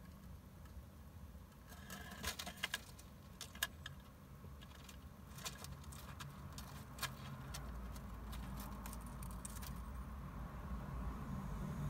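Hamster scrabbling through shredded paper bedding and onto an upturned clay pot: an irregular run of small crackles and claw ticks over several seconds, loudest about two to three and a half seconds in, with a low steady hum underneath.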